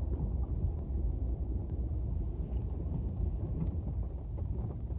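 Steady low rumble of a moving car heard from inside its cabin, with a few faint ticks.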